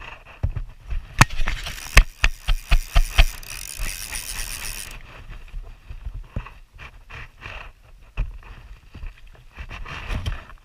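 Fly reel's ratchet check clicking while a salmon is played on a taut line, with a quick run of loud clicks and a hiss about two seconds in, then scattered clicks and handling knocks.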